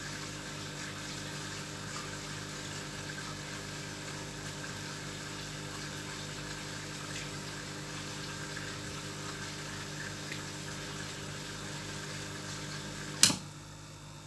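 Aquarium aeration: a steady pump hum with bubbling water from the air line. A single sharp knock comes near the end, and after it the bubbling hiss is quieter.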